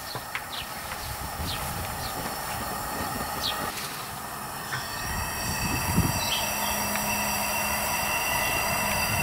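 Gas burner of a homemade furnace running with a steady rushing hiss. About five seconds in it grows a little louder and a high whistle and a low hum join it, with a single knock about a second later.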